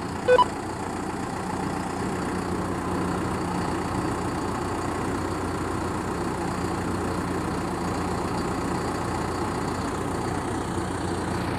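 Tractor engine running steadily at an even speed. A brief short tone sounds just after the start.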